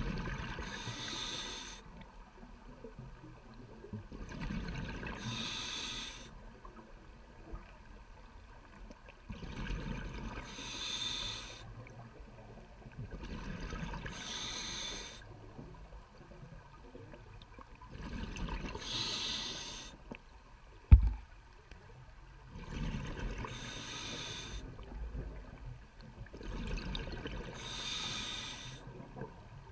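Scuba diver breathing through a regulator underwater: seven hissing bursts of exhaled bubbles, each about a second and a half long, roughly every four to five seconds. A single sharp low thump about two-thirds of the way through.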